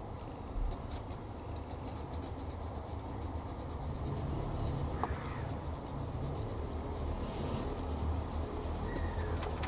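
Hand sanding of small plastic model-kit parts: quick, light scratchy strokes in irregular runs, over a low steady hum.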